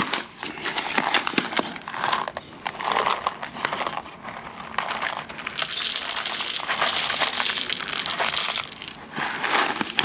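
Kraft-paper coffee bag crinkling as it is handled, then whole coffee beans poured into a stainless-steel blade grinder bowl, pattering and rattling against the metal for a few seconds from about halfway through.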